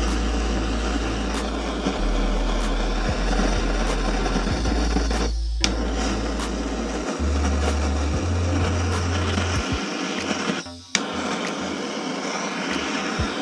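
Handheld butane blowtorch burning with a steady hiss, its flame played on the aluminium crankcase half of a Minarelli AM6 engine to heat it for pulling out the crankshaft. The hiss dips briefly twice, about five and a half and eleven seconds in.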